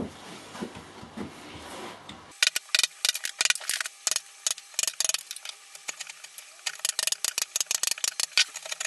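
Rapid, irregular sharp clicks and taps of a chisel working wood, chipping out the waste between saw kerfs of a lap joint. They start about two seconds in, after a faint low rustle.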